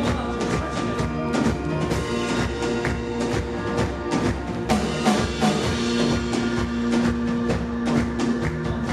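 A live worship band playing an instrumental passage: drum kit beating a steady rhythm under held instrument chords, with no singing.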